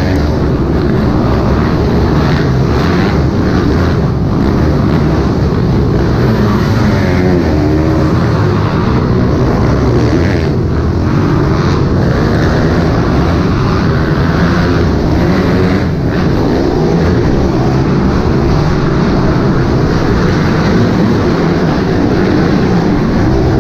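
Pit bike engines running on a motocross track, several small bikes revving up and down at once, with the pitch rising and falling as they accelerate and back off.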